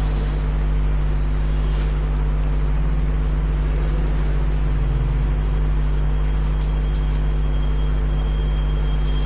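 Steady low electrical mains hum in the microphone and amplifier line, over a faint even hiss.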